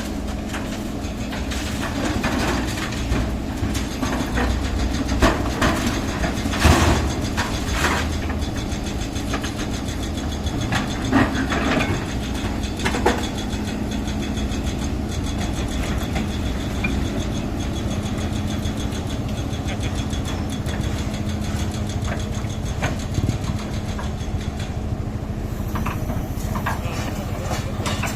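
A heavy construction machine's engine running steadily, with sharp clanks and knocks now and then, most of them in the first half.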